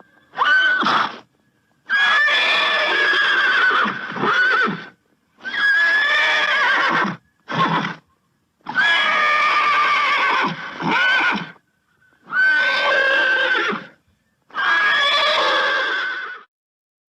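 A horse neighing over and over: about seven whinnies, each one to three seconds long with a wavering, shaking pitch, separated by short silent gaps.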